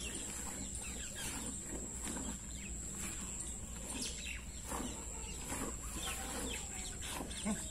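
Milk squirting into a steel pail as a cow is milked by hand, in short hissing strokes that repeat steadily.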